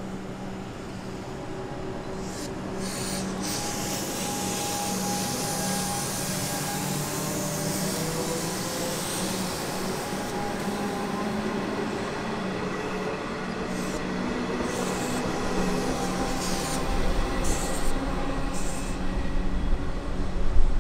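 Siemens electric multiple unit running past along the platform: a steady electric hum with shifting traction-motor tones over wheel and rail noise, with brief high hissing or squealing streaks. The noise grows louder near the end.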